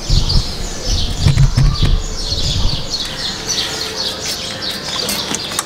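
Small birds chirping steadily. Low bumps of handling come in the first few seconds, and near the end a few short hisses of a hand trigger sprayer squirting kerosene onto a motorcycle chain.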